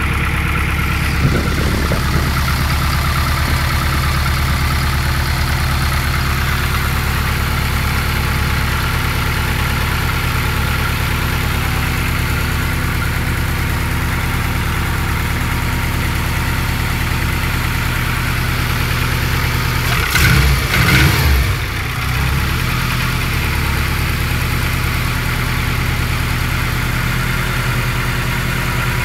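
Subaru WRX flat-four engine idling steadily after start-up, with the knock of forged pistons, typical piston slap from their looser fit. There is a brief louder burst about twenty seconds in.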